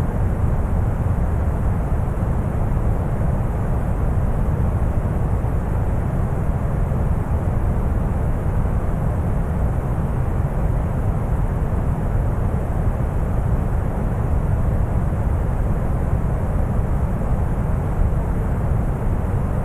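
Steady deep brown noise: a constant low, rumbling hiss, strongest in the bass and soft in the highs, with no change.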